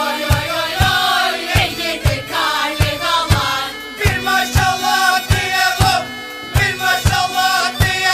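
Background music: a wavering, ornamented melody over a steady low drum beat of about two hits a second.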